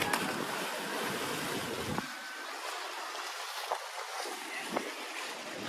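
Steady hiss of sea surf and wind, with a few faint clicks; a low wind rumble on the microphone drops away about two seconds in.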